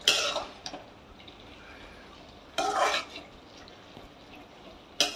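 Spoon stirring red amaranth greens in water in a metal kadai, with loud scraping strokes at the start, about two and a half seconds in, and again near the end.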